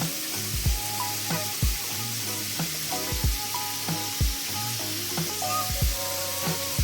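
Background music with a steady beat of low thumps and held notes, over a constant hiss.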